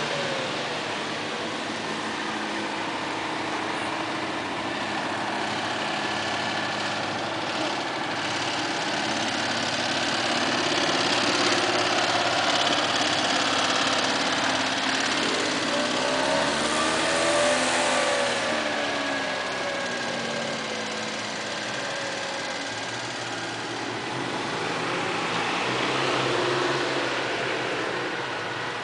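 Engines of small off-road vehicles, buggies and then a Citroën 2CV, revving as they climb one after another. The revs rise and fall as each one labours up, with one passing close a little past halfway.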